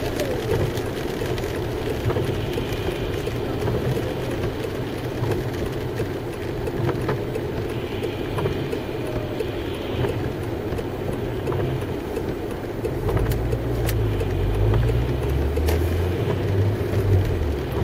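Car driving on a rain-wet road, heard from inside the cabin: a steady mix of engine and tyre noise, with the low engine rumble growing stronger late on.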